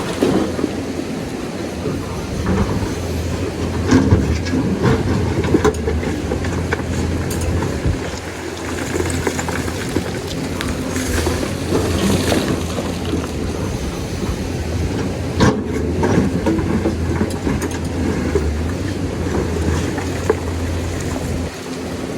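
Lonking excavator's diesel engine running steadily, with irregular clanks and knocks from the working machine.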